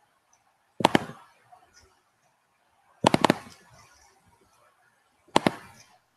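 Three short bursts of crackly popping, a little over two seconds apart, with near silence between them: audio dropout glitches on a video call whose connection is freezing.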